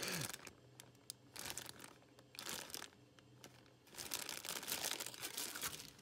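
Clear plastic bag crinkling in short, separate bouts as a replacement flame sensor is handled and pulled out of it.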